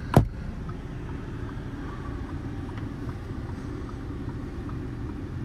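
A single sharp plastic click about a quarter second in as the sun visor with its vanity mirror is put away, then the steady low rumble of the 2012 Audi Q5's 3.2-litre V6 idling, heard from inside the cabin.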